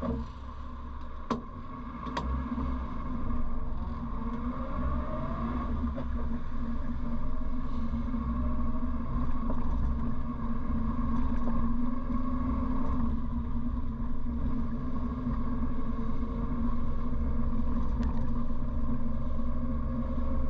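1957 Morris Minor's 948 cc four-cylinder engine heard from inside the cabin while driving. Two sharp clicks come in the first couple of seconds, then the engine note rises as the car accelerates and settles into a steady run.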